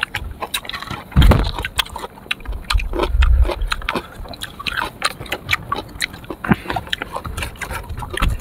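Close-up chewing and biting of crunchy sour fruit: a run of irregular crunching clicks, with a dull thump about a second in and another around three seconds in.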